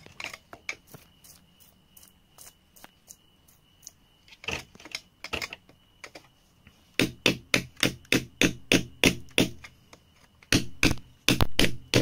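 Metal chisel striking and prying into hard-packed clay soil: a few scattered light taps, then from about halfway through a steady run of sharp strikes, roughly three a second.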